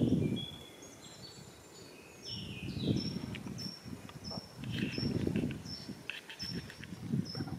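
Small birds singing, one repeating a short high note at even intervals from about two seconds in, with other chirps around it. Low muffled noise swells and fades underneath.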